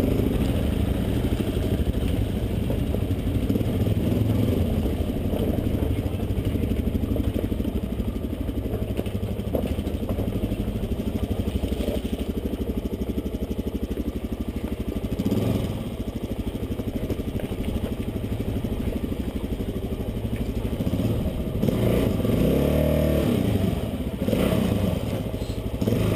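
Dirt bike engine running at low speed while riding over rocky steps, the revs rising and falling, with a couple of brief revs in the last few seconds.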